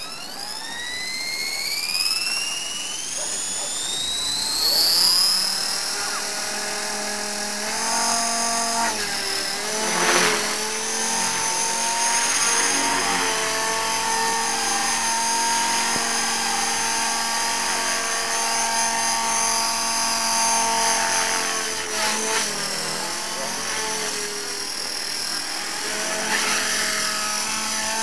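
Radio-controlled model helicopter spooling up, its motor and rotor whine rising steeply in pitch over the first few seconds, then running at a steady high whine as it lifts off and flies, the pitch wavering up and down as it manoeuvres.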